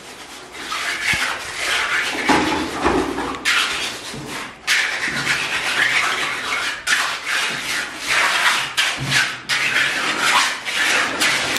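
Repeated scraping strokes of a hand tool on wet concrete as the floor is spread and levelled. Each stroke is a rough rasping sound lasting a second or two, with short breaks between them.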